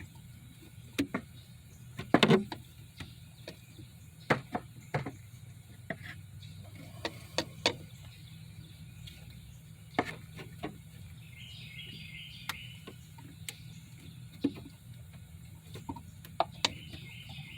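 Scattered sharp clicks and knocks, irregular and a second or so apart, from hands and tools working on the car's intake hoses and fittings under the hood, over a steady low hum.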